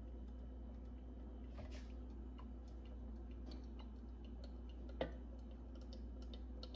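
Faint scattered clicks and taps from handling a bottle of avocado oil and a measuring cup while measuring out half a cup of oil, with one sharper tap about five seconds in, over a low steady hum.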